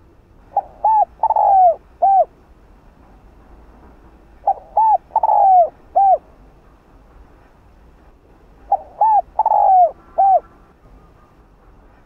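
Spotted dove giving its cooing song: three phrases about four seconds apart, each of four coos, the third coo longer and falling in pitch.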